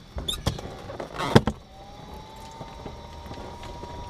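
Clicks and a sharp clack of cockpit switches being flipped in a parked Cessna Skyhawk, then an electric whine rises briefly and settles into a steady high tone as the panel instruments and avionics power up.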